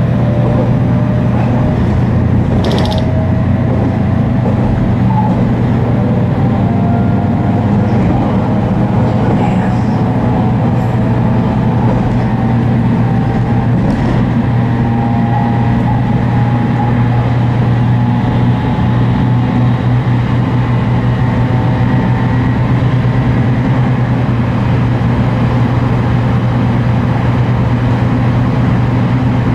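Running noise of a JR Kyushu 813 series electric train's motor car, its Toshiba GTO inverter and traction motor tones climbing slowly over a heavy, steady low drone. The recordist takes the deep low drone for a possible abnormal noise, though unsure it is a fault.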